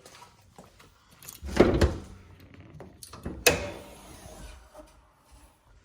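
The hood of a 1987 Toyota Cressida being opened: a loud clunk of the hood latch and panel about a second and a half in, then a single sharp metallic click with a short ring about two seconds later.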